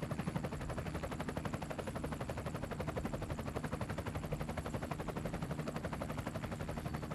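Faint, steady, rapid pulsing of helicopter rotor chop, heard from the aircraft between radio transmissions.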